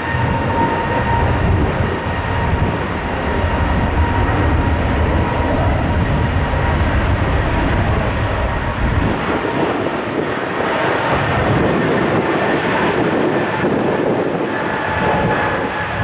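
Embraer E195-E2's geared turbofan jet engines at takeoff power: a loud, steady roar with a deep rumble and a high fan whine on top. Near the end the whine drops slightly in pitch.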